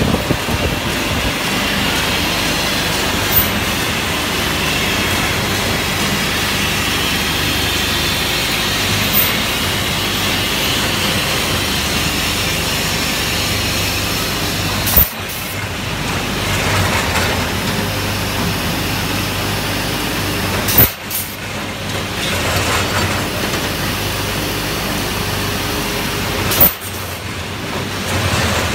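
Steel pipe production line running: a steady machinery din with a low hum, broken by a sharp bang about every six seconds, five times.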